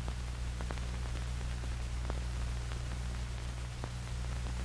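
Steady low hum and hiss of an old film soundtrack, with a few faint scattered clicks and crackles.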